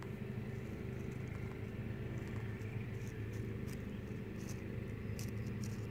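A steady low mechanical hum with several fixed tones, with a few faint clicks partway through.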